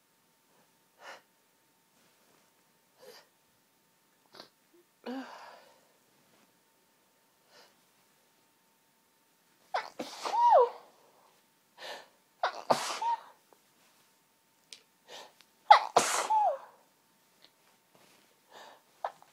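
A woman's sneezing fit brought on by hay fever. After a few short, faint sounds, three loud, high-pitched sneezes come about ten, twelve and sixteen seconds in, each ending in a voiced 'choo' that falls in pitch.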